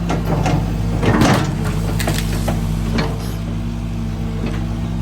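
A heavy machine's engine running steadily, with several sharp knocks and cracks from the demolition work.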